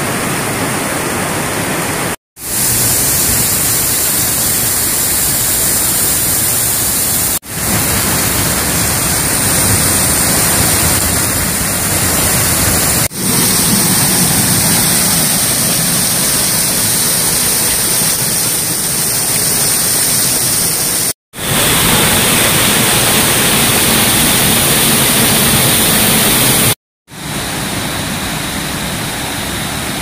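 Urami Falls, a waterfall in Nikko, with water falling onto rocks in a loud, steady rush. The sound is cut off abruptly a few times, with brief silences between takes.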